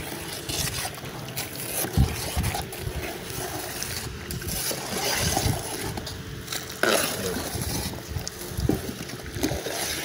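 Wind rumbling on the microphone, broken by a few sharp knocks and scrapes, the loudest about two seconds in and again near seven seconds.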